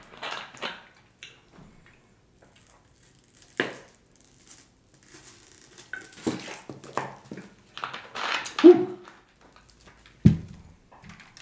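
A plastic water bottle being handled and drunk from: crinkling and clicks of the cap being twisted open, then a run of gulps and crackling plastic a few seconds later. One sharp knock about ten seconds in.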